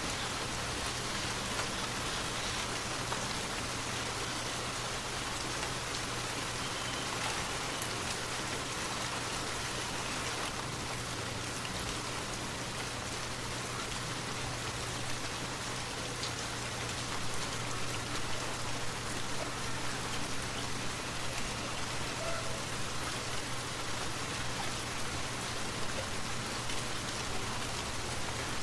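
Forest waterfall: a steady, even rush of falling water with no pauses.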